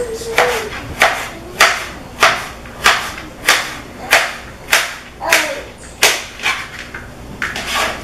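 Chef's knife chopping zucchini squash on a plastic cutting board: a steady rhythm of sharp knocks, about one every half second.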